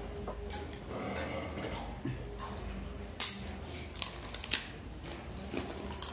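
Cutlery clinking and scraping against plates and bowls during a meal, with a few sharp clinks, the loudest about three seconds in and two more about a second later.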